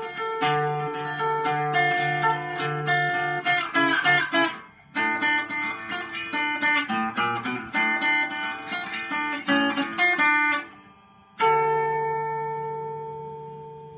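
Acoustic guitar played through its double pickup, an under-saddle piezo blended with an internal microphone that is turned fully up. Strummed and picked chords, a brief pause near the middle, then a last chord near the end left to ring and fade out.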